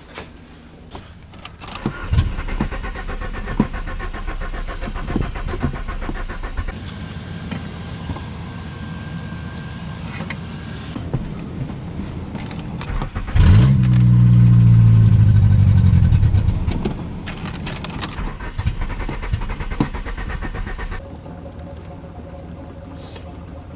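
Nissan Sentra engine being started and running unevenly, with one loud rev about halfway, then cutting out near the end. It is starved of fuel from a nearly empty tank and won't run or idle.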